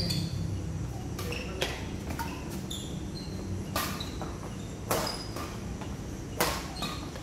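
Badminton rackets striking a shuttlecock back and forth in a rally: sharp strikes about once a second, some with a brief ringing ping from the strings, over a low steady hum.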